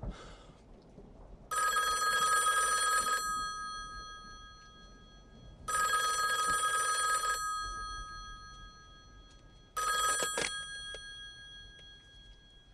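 Push-button desk telephone ringing: two long rings of about a second and a half each, then a third cut short about ten seconds in by a clack as the handset is lifted off the cradle.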